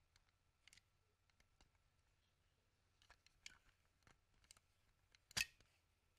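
Plastic shell of a Logitech wireless mouse being pried apart by hand: a few faint ticks of the clips, then one sharp snap about five seconds in as the top shell comes free of the base.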